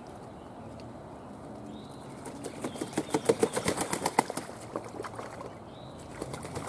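Mulberry leaves and twigs rustling and brushing against the camera as it moves among the branches, a run of soft crackles in the middle. Two faint short high chirps in the background.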